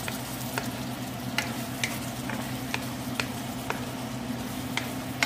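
Wooden spoon stirring pork and chilies simmering in coconut milk in a nonstick pan: a steady sizzle, with light knocks of the spoon against the pan about twice a second.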